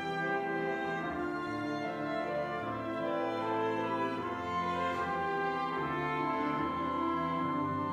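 Small church ensemble of violin, flute and clarinets playing slow, sustained classical-style music: the instrumental introduction to a choral anthem, before the choir comes in.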